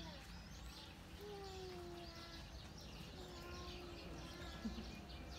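Snow leopard calling: a series of long drawn-out calls, each about a second and falling slightly in pitch, faint, with small birds chirping throughout.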